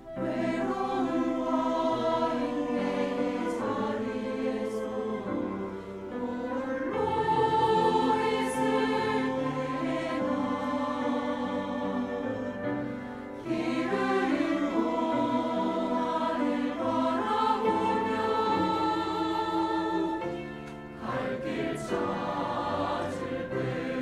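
Mixed church choir of men's and women's voices singing a sacred anthem, in long phrases with short breaks about a third and two-thirds of the way through and again near the end.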